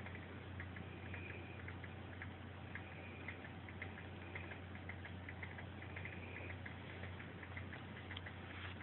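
A sleeping dog snoring softly. Each slow breath brings a cluster of fine clicks with a faint whistle, repeating about every second and a half.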